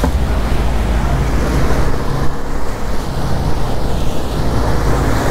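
Twin 150 hp outboard motors running steadily with the boat underway, a low engine drone under the rush of churning wake water and wind buffeting the microphone.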